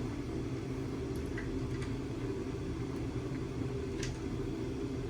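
Steady background hum with a few faint, light clicks as screws are started by hand into a VANOS adjustment unit on the engine.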